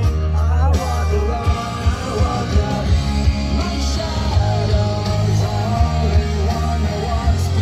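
A song with a singing voice over a heavy, pulsing bass line.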